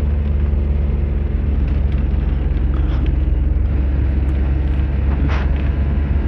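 Bus engine and road noise inside a moving bus with its windows open: a steady low drone, with a brief squeak about five seconds in.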